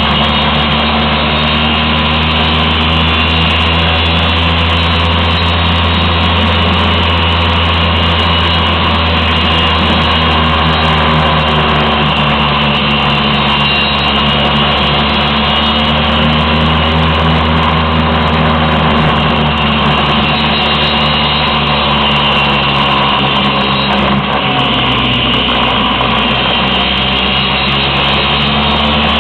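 Vespa scooter's two-stroke engine running steadily under load on an uphill climb. Its pitch shifts briefly near the end as the throttle changes.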